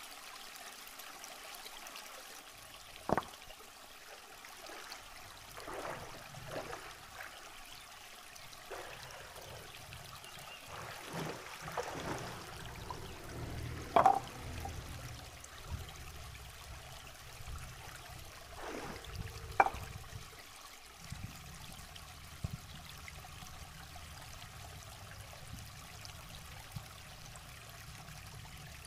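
Shallow rocky river water trickling and flowing steadily, with a few short, sharp splashes scattered through, the loudest about halfway.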